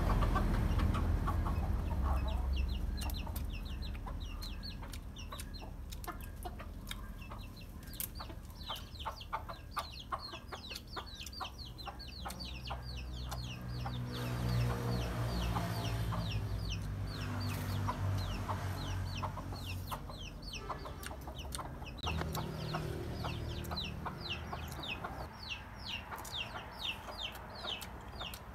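Chickens clucking, with runs of quick high peeps repeating several times a second and scattered sharp clicks. A low rumble fades out over the first few seconds.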